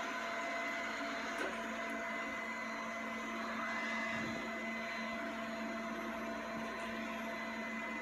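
Robomann 361 robot vacuum running on its medium suction setting (1800 Pa): a steady whir of the suction fan with a constant low hum and a thin high whine.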